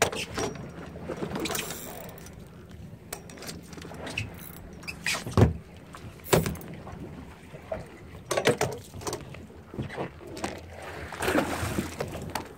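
A fishing boat's engine gives a low steady hum under irregular knocks and thumps on deck, two of them loud, about five and six seconds in.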